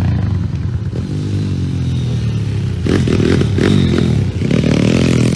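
Motocross dirt bike engine revving. Its pitch falls as the throttle eases over the first couple of seconds, then climbs sharply as the rider opens it up about three seconds in, and again near the end after a brief drop.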